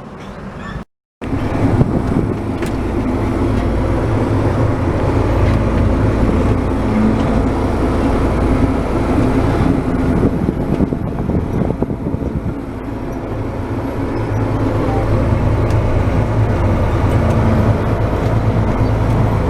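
A vehicle engine running steadily with a low hum and a wide rush of noise, starting right after a brief cut to silence about a second in.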